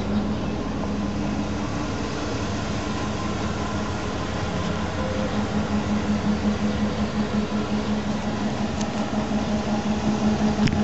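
Ford F-350 mini fire engine idling, a steady mechanical hum with a constant low tone. The level pulses slightly from about halfway through.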